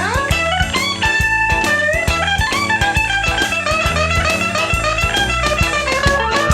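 Instrumental break of an upbeat rock-and-roll song: a lead guitar playing quick runs of notes over bass and a steady drum beat.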